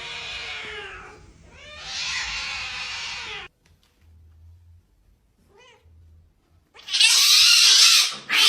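Domestic cat meowing: two long, drawn-out calls that fall in pitch, a lull with one faint short call, then a loud harsh, noisy cry near the end.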